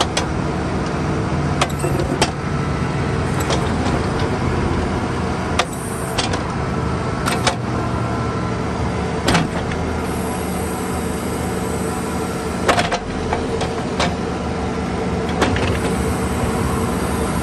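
Bobcat 322 mini excavator's three-cylinder Kubota diesel running steadily while the hydraulics work the bucket, with sharp clunks every few seconds. A faint high whine comes twice in the second half.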